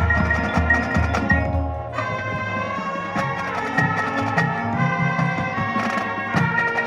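High school marching band music with mallet percussion such as marimba and glockenspiel prominent among sustained pitched chords and sharp percussion strikes. A low pulsing bass line stops about two seconds in.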